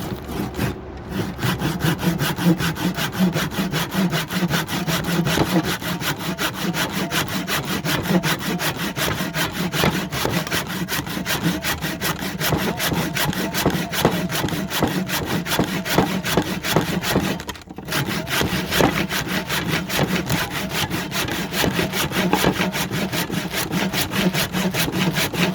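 Hand saw cutting through a knot in a cedar block with quick, steady back-and-forth strokes, stopping briefly about two-thirds of the way through.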